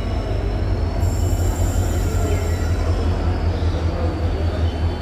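Twin WDG4 (EMD GT46MAC) diesel locomotives running with a deep, steady engine hum, the noise of the moving freight train over it. A thin high whine comes in about a second in.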